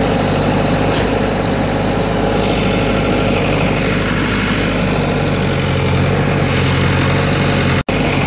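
Engine idling steadily with a low drone, cutting out for a moment near the end.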